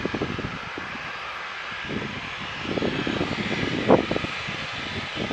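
Boeing 737-800's CFM56 jet engines running at taxi power as the airliner rolls slowly along the taxiway, a steady whine and hiss. Wind buffets the microphone in uneven low gusts, the strongest about four seconds in.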